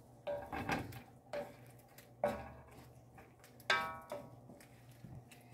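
Wooden spoon stirring shrimp in a metal wok, knocking against the pan several times. Two of the knocks, in the middle and about two-thirds of the way through, leave a brief metallic ring.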